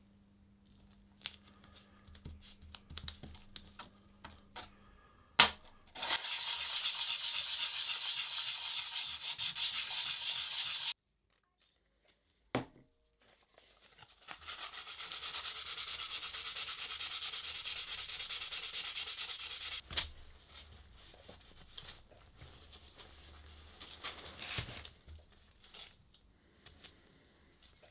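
Steel plane iron of a Stanley 75 bullnose plane being lapped by hand on abrasive paper: quick back-and-forth scrubbing strokes in two runs of about five seconds each. Light clicks and taps of the blade being handled come before, between and after.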